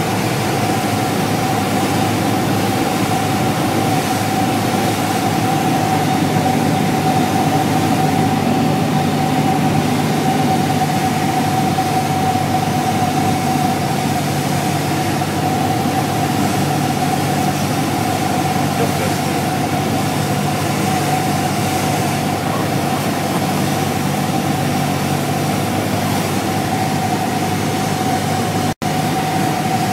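Cessna 172's piston engine and propeller droning steadily, heard from inside the cabin, with one strong steady tone over the drone. The sound breaks off for an instant near the end.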